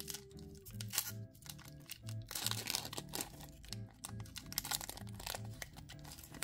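Foil wrapper of a Pokémon Evolving Skies booster pack crinkling in bursts as it is torn open and the cards are pulled out, over background music with a steady beat.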